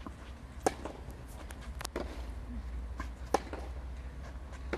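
A tennis rally on a clay court: sharp pops of rackets striking the ball back and forth. The two loudest hits come about two and a half seconds apart, with fainter hits and bounces in between.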